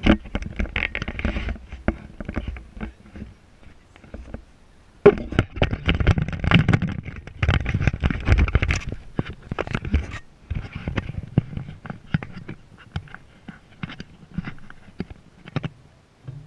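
Irregular crackling and scraping rustle, heaviest in a dense stretch about five to nine seconds in: handling noise from a handheld camera being moved and rubbed.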